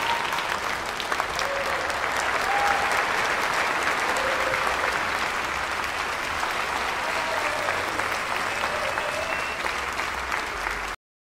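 A theatre audience applauding steadily, a dense patter of many hands clapping. It cuts off suddenly near the end.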